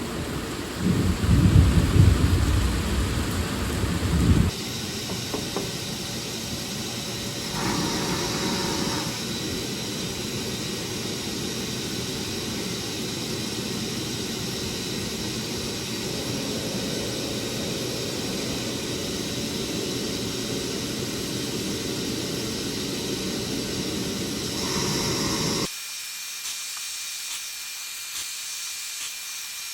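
Thunder rumbling with rain for the first few seconds. It then cuts abruptly to a steady hiss with a faint hum, which drops to a quieter hiss with light ticks near the end.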